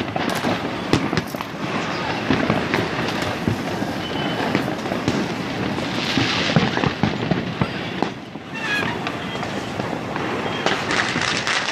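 Firecrackers and aerial fireworks going off all over a city at once: a dense, unbroken crackle of many overlapping bangs and pops, easing briefly about eight seconds in.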